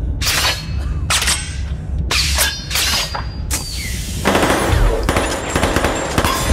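Film gunfire: a few separate bursts of shots over a low rumble, then a dense run of shots and crashing from about four seconds in.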